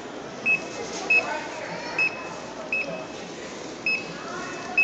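Handheld barcode scanner beeping as items are scanned one after another: six short, identical high beeps, roughly one a second, each marking a successful read.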